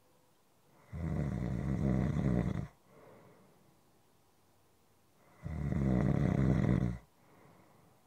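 Slow, steady snoring: two long snores about four and a half seconds apart. Each lasts about a second and a half and is followed by a short, soft breath out.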